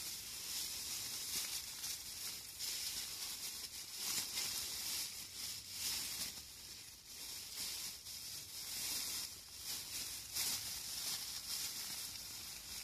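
Plastic bag rustling and crinkling in irregular bursts as gear is handled and rummaged through.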